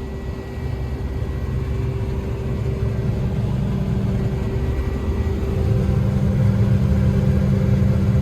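RoGator 1074 self-propelled sprayer's engine running under way on hydrostatic drive, heard from inside the cab: a steady low rumble with a steady whine, gradually growing louder.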